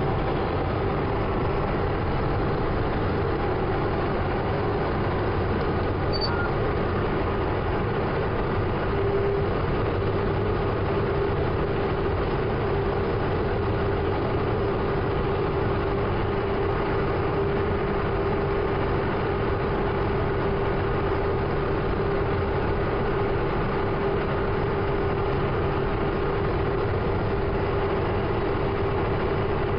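Case IH Steiger 620 QuadTrac tractor's diesel engine running steadily at about 1,800 rpm as the tractor drives at constant speed, heard inside the cab. A steady hum-like tone strengthens about nine seconds in.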